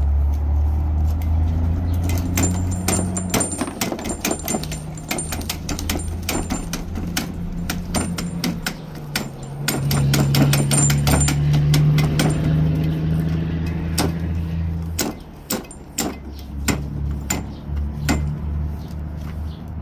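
Repeated sharp clicks and knocks from handling a Burndy hydraulic crimper while it is refilled with oil, over a steady low hum.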